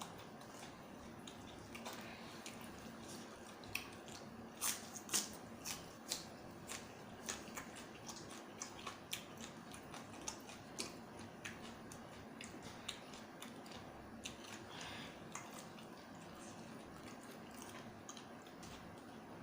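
Close-up eating sounds of someone chewing spicy seafood salad: an irregular run of small wet clicks and smacks from the mouth, thickest in the middle of the stretch.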